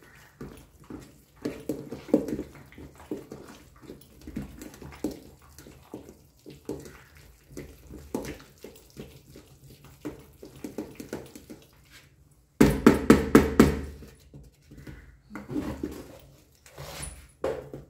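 Wooden spoon beating and scraping a thick, crumbly mixture in a steel pot, a steady run of uneven knocks and scrapes. About two-thirds through, a louder, faster burst of strokes, about five a second, lasts a second or so.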